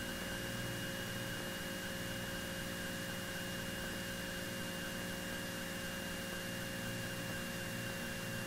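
Faint steady electrical hum and hiss of an aircraft intercom audio feed with its voice squelch closed, a few fixed tones over an even background noise.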